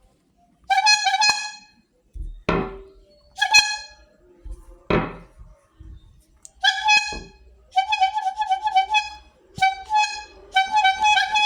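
A cilok street-food vendor's horn sounding in quick strings of short, same-pitched toots, several times over, with two long falling swoops in pitch between the first strings.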